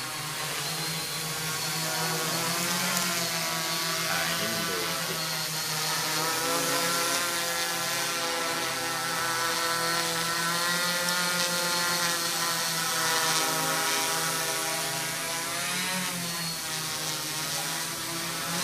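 Quadcopter's electric motors and propellers humming steadily in a hover, the pitch wavering gently up and down as the rotors adjust their speed.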